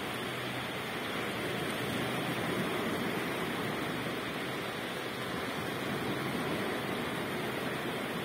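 Steady, even rush of ocean surf washing onto a shallow, pebbly shore.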